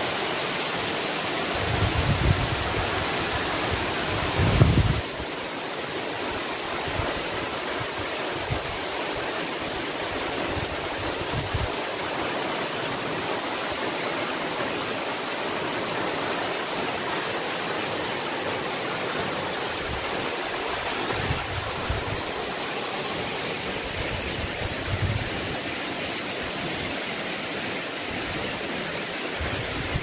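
A tall waterfall pouring into a pool, a steady rush of falling water, with a few brief low bumps and a slight drop in level about five seconds in.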